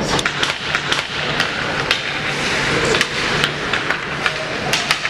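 Ice hockey play: about a dozen sharp, irregular clacks of sticks and puck, over the steady noise and low hum of the rink.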